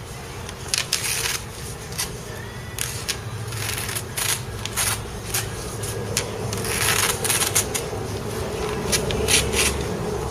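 Irregular short clicks and clatters of small hard objects being handled, over a faint steady hum.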